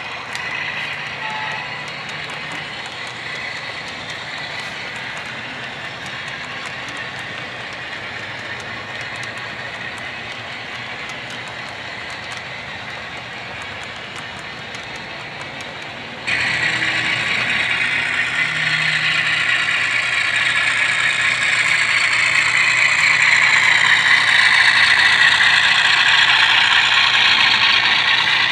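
Model freight train rolling along the layout track, its wheels and running gear giving a steady rolling hiss and rumble. About sixteen seconds in it turns suddenly louder and brighter.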